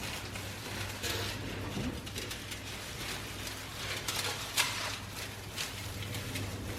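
Cling film crinkling and rustling as it is peeled off a set chocolate fridge cake, with a sharper crackle about four and a half seconds in, over a low steady hum.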